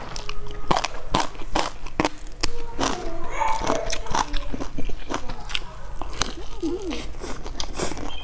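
Crisp, flaky pan-fried stuffed flatbread being bitten and chewed close to the microphone: a run of crunchy crackles, several a second.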